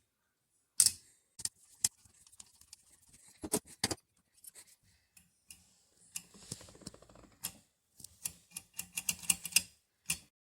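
Small metal carburetor parts clicking and tapping as they are handled and fitted, irregular light clicks with a faint scraping in the middle and a quick run of clicks near the end.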